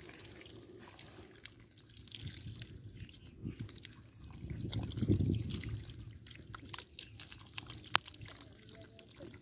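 Bare hands digging and scooping wet mud, with squelching and dripping water and scattered small clicks. The sound swells about five seconds in, and there is one sharp click near the end.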